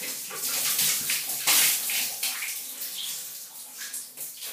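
Water poured from a plastic pitcher splashing over a person's head and onto the floor of a tiled shower. It surges near the start and again about a second and a half in, then dies down.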